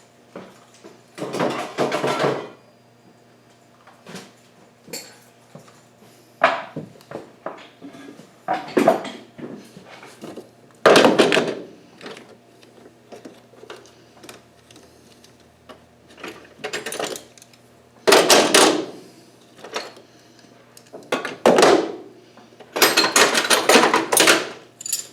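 Loose metal tools and engine parts clinking and clattering as they are picked up and set down, in about eight separate bursts.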